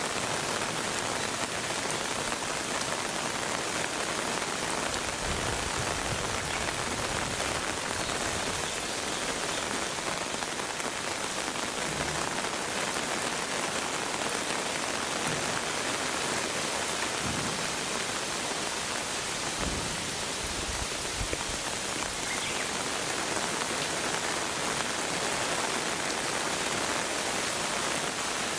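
Steady rain falling and pattering on wet concrete and rock, with a few dull low thumps scattered through it.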